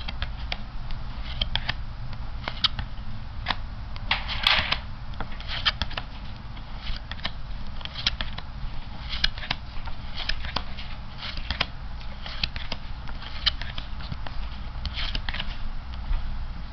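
Playing cards being handled and flicked off the front of a deck one at a time, with irregular snaps and rustles about one or two a second, the loudest a longer rustle about four and a half seconds in. A steady low hum runs underneath.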